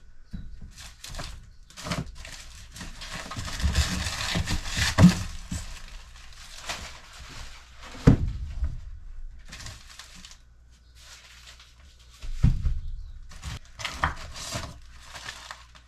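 Frozen meat packages wrapped in butcher paper being handled inside a chest freezer: irregular paper rustling and crinkling, with a few hard knocks as the frozen bundles bump each other and the freezer walls.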